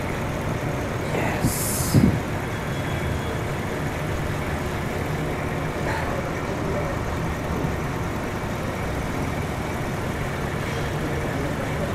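Ford Expedition's 5.4-litre V8 idling steadily with a misfire, which the scan tool's power balance test puts on cylinder 7. About two seconds in there is a brief hiss and a couple of sharp clicks.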